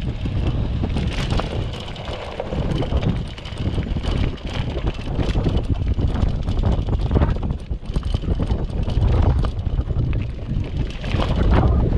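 Wind buffeting the microphone of a mountain bike on the move, a steady low rumble, with frequent rattles and knocks from the bike riding over a rough dirt track.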